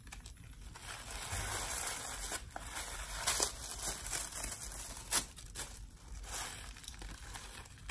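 Thin plastic packaging bag crinkling and rustling as a synthetic wig is pulled out of it, with a few sharper crackles, the loudest about three and a half and five seconds in.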